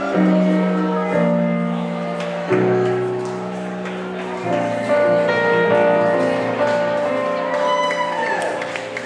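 Instrumental closing bars of a blues ballad played live on a hollow-body electric guitar and keyboard: sustained chords that change every second or two, with no singing.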